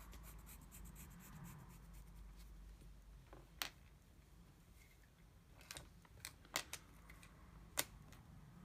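Pencil scratching on paper in quick short strokes for the first two seconds or so, then a handful of faint sharp clicks scattered through the rest.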